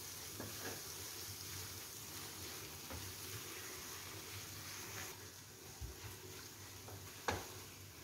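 Faint scrapes and soft taps of a silicone spatula stirring desiccated coconut into a thick bottle-gourd burfi mixture in a nonstick kadai, with one sharper tap a little after seven seconds in.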